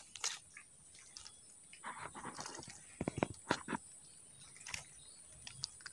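Faint, irregular clicks and rustles from handling fishing gear and a just-caught small climbing perch, with a short cluster about two seconds in and a few sharper ticks around three seconds in.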